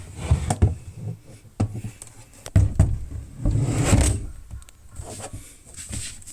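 Hard plastic tool case being handled: a run of sharp clicks and dull knocks with rubbing in between, busiest about halfway through.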